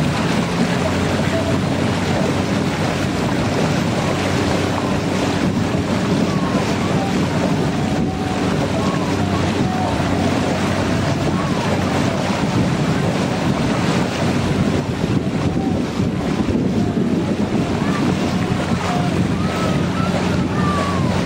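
Motor launch's engine running at a steady drone, with wind buffeting the microphone and water rushing past the hull.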